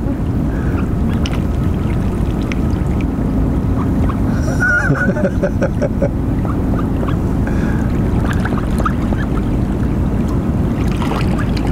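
Mallard ducks calling as they paddle up to be fed, with a quick run of short quacks about five seconds in and scattered softer calls, over a steady low rumble.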